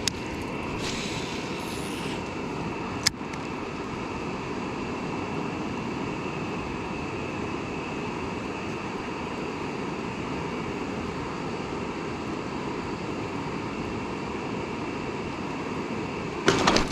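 Steady rushing noise, unchanging throughout, with one sharp click about three seconds in.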